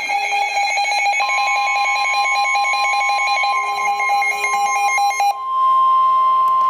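Emergency alert tones: a buzzy electronic alarm with a rapid flutter, joined about a second in by a steady higher tone. The buzzing cuts off about five seconds in, leaving the steady weather-radio warning alarm tone that heralds a severe thunderstorm warning.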